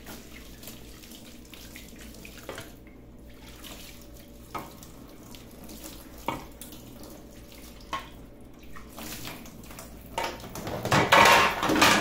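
Kitchen tap running into a stainless steel sink while clear plastic fridge compartments are rinsed under it, with a few light knocks of plastic. The splashing grows much louder in the last two seconds as water hits the pieces directly.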